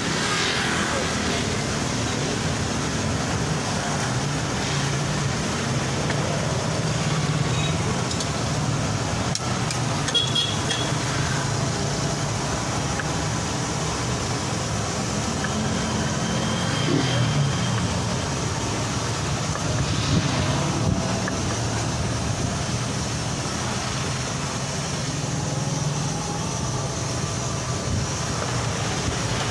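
Steady road traffic noise with passing vehicles, and faint voices in the background.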